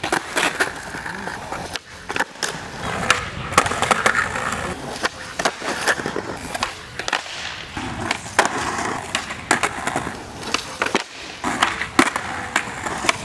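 Skateboards rolling on concrete, with repeated sharp tail pops and board slaps as flatground tricks are tried and landed.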